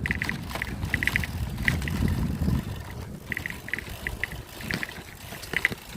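Wind buffeting the microphone of a moving bicycle rider, a low rumble that swells and eases, with scattered light ticking.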